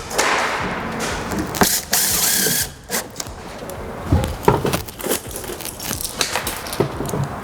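Screws being driven into a door liner panel: a short whirring burst about two seconds in, then scattered clicks and knocks of screws and panel being handled.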